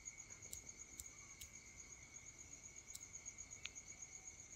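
Near silence, with a faint, steady high-pitched trill in the background and a few soft ticks.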